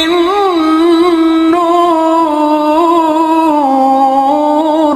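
A male Qur'an reciter chanting in the melodic tilawah style. He draws out one long phrase on held notes, with small wavering turns and ornaments in pitch.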